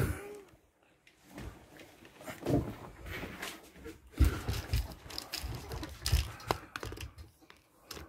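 Handling noise: rustling and light knocks, with a few dull thumps, as a TV aerial cable is handled and moved about inside a caravan.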